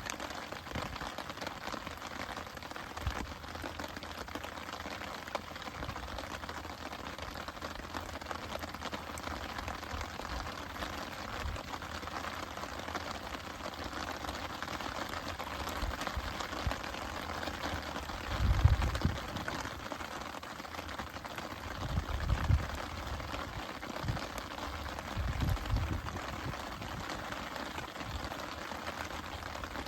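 Campfire crackling steadily, with many small pops from the burning wood. Three low rumbles come in the second half.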